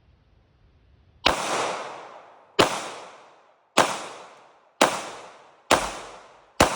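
Hi-Point C9 9mm pistol on a 3D-printed EBT-9 frame firing six shots about a second apart, each with a long echoing tail.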